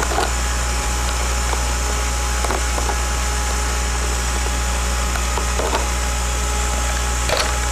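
A steady low hum and even hiss on a camcorder's own recording, with a few faint clicks from handling a camcorder's controls about two and a half, six, and seven and a half seconds in.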